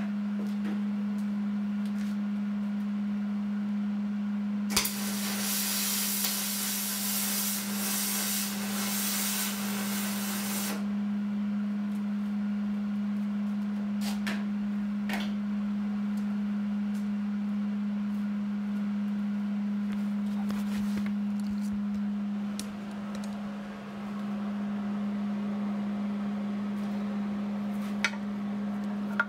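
Aluminum MIG welding with a spool gun feeding 4043 wire under argon: the arc runs with a steady hissing crackle for about six seconds, starting about five seconds in. A steady low hum sounds throughout, and a few clicks follow the weld.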